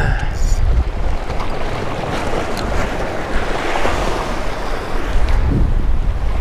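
Surf washing over a rocky shoreline, with wind buffeting the microphone in a steady low rumble.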